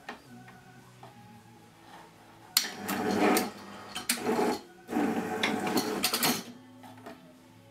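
Cosmic 60R cable jacket stripper running a strip cycle: a sharp clack about two and a half seconds in, then three bursts of motor and mechanism clatter as it clamps the cable and cuts and pulls off the jacket.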